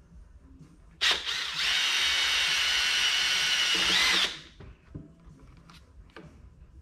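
Cordless drill starting suddenly about a second in and running steadily for about three seconds, boring a pilot hole in the plastic base of a gas leaf blower for a rubber foot's screw. Its pitch rises briefly just before it stops.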